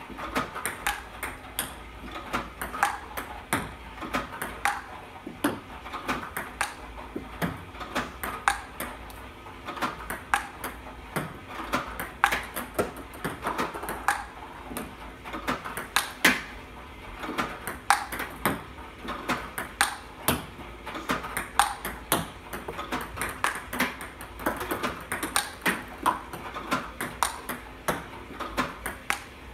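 Table tennis balls clicking in a rapid, steady stream, several a second: balls fed by an iPong Pro robot bounce on the table and are struck back with a Stiga Pure Color Advance paddle.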